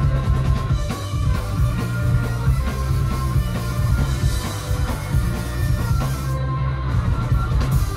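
Live rock band playing loud: electric guitar, bass guitar and drum kit, with a heavy, steady low end.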